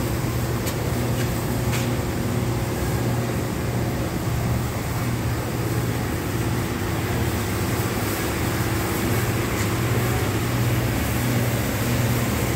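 Steady low mechanical hum with a broad hiss, the background noise of running workshop machinery. A couple of faint clicks come in the first two seconds.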